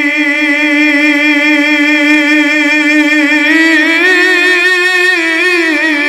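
A man singing an unaccompanied Bengali gazal (Islamic devotional song) into a microphone, holding one long note with a wavering vibrato; the pitch steps up a little partway through and falls near the end.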